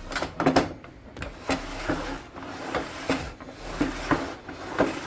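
Wooden rip fence on an old Craftsman table saw being slid back and forth across the freshly waxed top, with about ten knocks and clacks of the fence against the rails and table.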